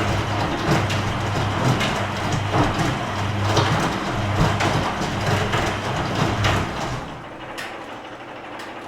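Washing machine at the start of its wash cycle, the drum turning at constant speed: a steady motor hum with irregular swishes and knocks of the laundry tumbling. About seven seconds in the motor stops and the sound drops to a quieter swish.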